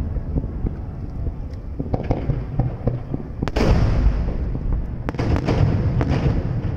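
Aerial firework shells bursting: a series of sharp booms over a continuous low rumble, the loudest about halfway through and several more close together near the end.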